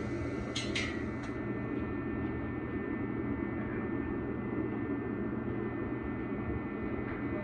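Steady mechanical drone from a running machine, with a low hum and a few steady high tones. Two short sharp clicks come just over half a second in.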